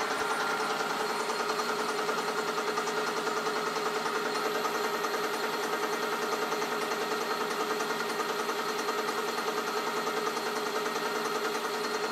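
Hafco Metalmaster AL960B metal lathe running steadily on its slow pulley at high speed, its three-phase motor driven by a VFD: a steady mechanical hum with a constant whine and a fine, fast flutter. The spindle is turning at about 610 rpm, a bit slow against the 650 rpm this setting should give.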